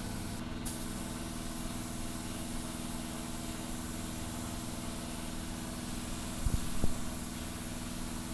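Steady machine hum with several even tones, the air supply running for a paint spray gun. Two short knocks come near the end.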